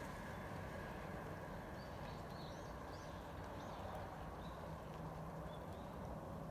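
Small birds chirping in short, quick calls from about two seconds in, over a steady faint background rumble.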